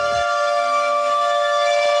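Air-raid siren wailing at a steady, held pitch. A low falling sound underneath stops about a quarter second in.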